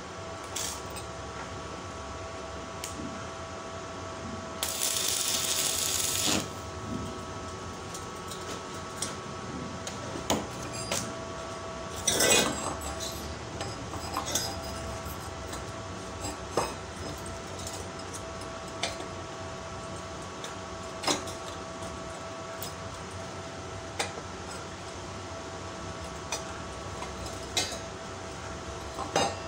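Sharp metallic taps and clinks of a hammer on the thin steel strips of a hexagonal paving-block mould, one louder strike about twelve seconds in. A steady whine sounds throughout, and about five seconds in a burst of hiss lasting under two seconds is heard, typical of an arc-welding tack.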